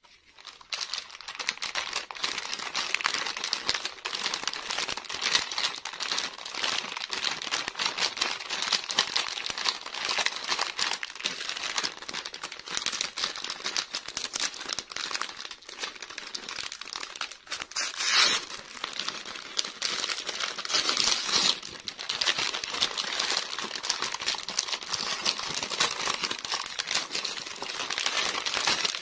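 Plastic snack wrapper crinkling and crackling under the fingers as it is squeezed and torn open. Continuous dense crackle with louder moments about two-thirds of the way through.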